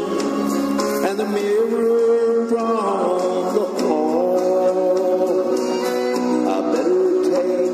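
Music: a country song with a man singing.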